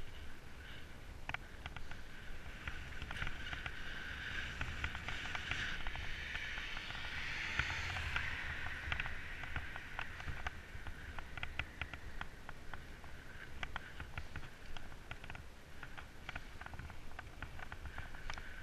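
Mountain bike riding along an asphalt road: a steady rush of tyre and wind noise that swells in the middle, with irregular clicks and rattles from the bike.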